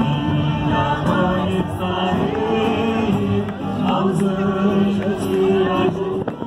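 Music with singing: slow, held melodic notes that move in steps, with no break.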